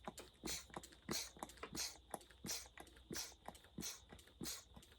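Hand pump of a crankcase pressure tester being worked in steady strokes, each a short hiss of air, about one and a half a second, pressurising a McCulloch chainsaw's crankcase that has a substantial leak.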